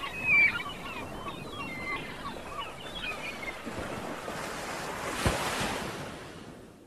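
Surf washing on a rocky shore with wind buffeting the microphone, and small birds chirping over the first half. A single sharp knock comes about five seconds in, then the sound fades out.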